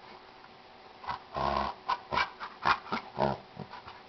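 Dogs at play vocalizing: after about a second of quiet, a quick run of about a dozen short play growls and yaps.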